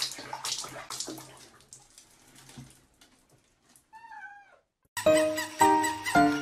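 Bathwater splashing and sloshing around a cat in a basin, then a single short meow that falls in pitch about four seconds in. Loud music starts about a second later.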